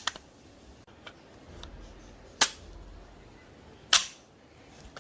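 A few sharp clicks: two loud ones about a second and a half apart near the middle, with fainter ones before them.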